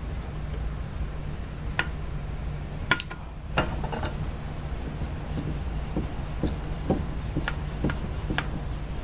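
Scattered clicks and light knocks of small parts and tools being handled, coming more regularly, about two a second, in the second half, over a steady low hum.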